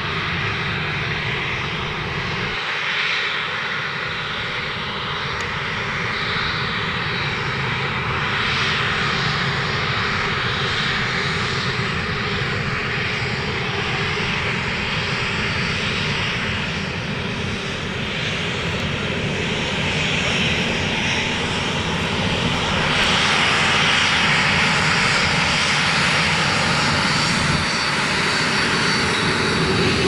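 Boeing 737's twin turbofan jet engines running as the airliner taxis close by, a steady loud jet noise. It grows louder about two-thirds of the way through as the engines spool up for the takeoff roll.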